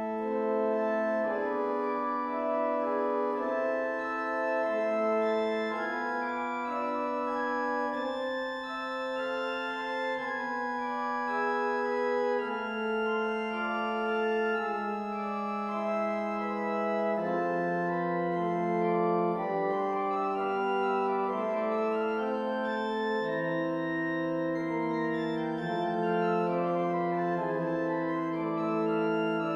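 Organ playing a piece in several parts: held notes move in steps over a sustained bass line.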